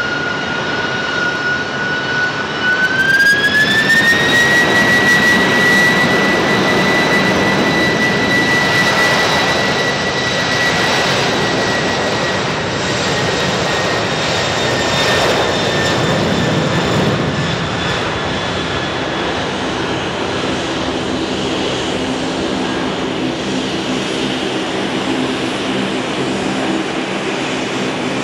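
Boeing 747-400 freighter's four jet engines spooling up to takeoff thrust: a whine that rises in pitch about three seconds in, over a loud steady jet roar that carries on through the takeoff roll and liftoff, easing slightly as the aircraft moves away.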